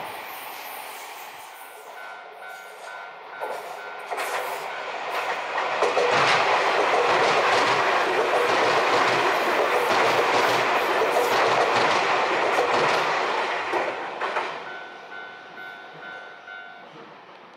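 Keio Inokashira Line 1000 series electric train passing: its noise builds over a few seconds, wheels clicking over rail joints at its loudest, then fades away. A repeating beeping tone is heard before and after the loudest part.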